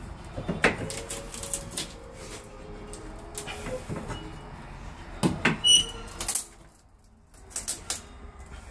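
Pry bar levering and bending an old metal window frame: scattered metal knocks and scrapes, a drawn-out creak about a second in, and a short metallic squeal a little over five seconds in.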